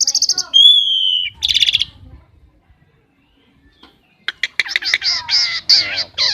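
Tame jalak (starling) calling: a short buzzy note, a clear whistle and a rattling burst in quick succession. After a pause of about two seconds comes a fast run of repeated harsh notes.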